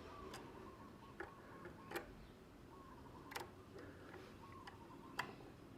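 About half a dozen faint, sharp clicks and taps, scattered irregularly, as multimeter test probes are touched against the loose switch wires and ground to find the hot wire.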